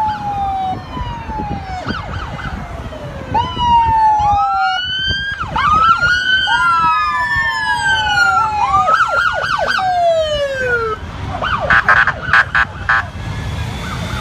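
Several police sirens sounding at once in short whoops and falling wails that overlap, with a run of rapid pulsed tones about twelve seconds in. Vehicle engine noise runs underneath.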